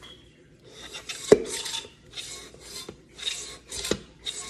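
Pampered Chef hand-pumped batter mixer mixing cake batter: the plunger is worked up and down through the batter in the plastic jar, giving a rhythmic run of scraping strokes about twice a second from about a second in, with a sharp plastic knock on some strokes.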